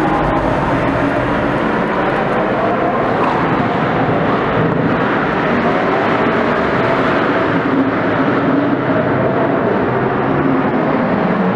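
Lamborghini Aventador's V12 engine running in a steady, loud drone, its pitch wavering slightly; it cuts off abruptly at the end.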